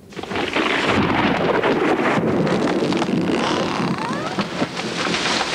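Thunder cracking suddenly and rolling on as a long, dense rumble, with wind.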